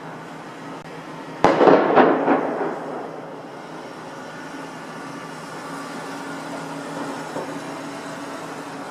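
Firecrackers going off outdoors: a sharp bang about a second and a half in, followed quickly by a couple more, echoing away over about a second, then a fainter pop near the end, over a steady low background hum.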